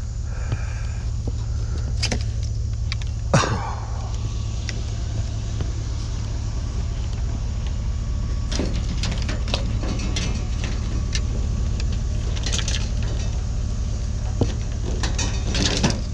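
Steady low rumble of a running vehicle, with a sharp knock about three seconds in and scattered clinks and rattles of loose items later on.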